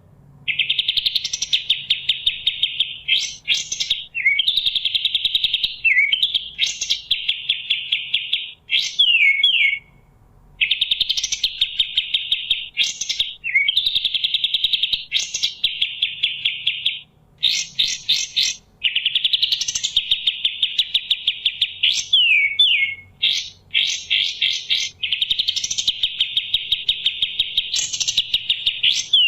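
Kapas tembak bird singing: repeated fast, dense trills one to three seconds long, broken by short sweeping whistled notes, with brief pauses between phrases.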